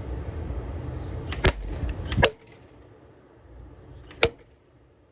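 Airsoft AK rifle firing BBs in single shots: a quick run of sharp snaps a little over a second in, then one more about four seconds in.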